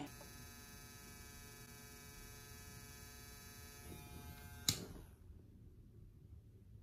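Electric nail drill running with a steady, faint whine, then switched off with a click about four and a half seconds in.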